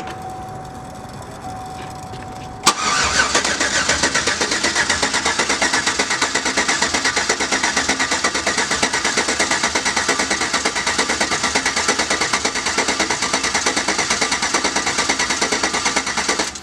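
Truck engine being cranked over on the starter with its ignition coil packs unplugged, so it turns over in an even, pulsing rhythm without firing. This is a dry crank to build oil pressure after new lifters were fitted. A faint steady tone comes first, and the cranking starts suddenly a few seconds in and stops just before the end.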